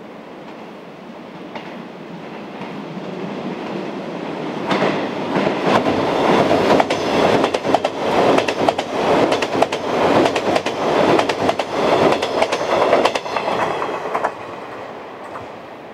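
A 381-series limited-express electric train approaching and passing close by. Its wheels click rapidly over the rail joints for about ten seconds, then the sound drops away near the end.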